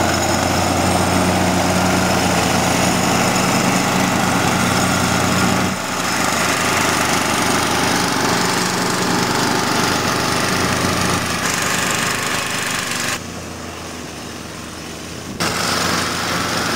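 Snapper lawn mower's Briggs & Stratton engine running, a motor that is going bad. It dips briefly about six seconds in, drops noticeably quieter for about two seconds near the end, then comes back up.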